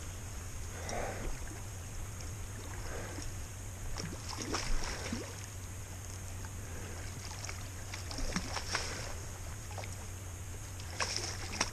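A hooked steelhead splashing and swirling at the water's surface while it fights on the line, heard as scattered short splashes and clicks over a steady low hum.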